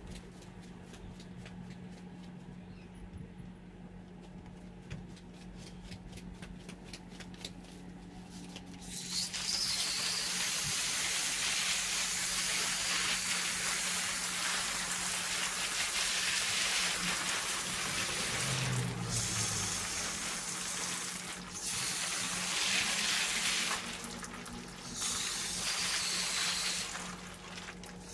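Water from a garden hose spray nozzle hitting an LM7 5.3-litre cast-iron LS engine block in a steady hiss of spray and splashing. It starts about nine seconds in and breaks off briefly a few times near the end. Before that there is only a quiet low hum.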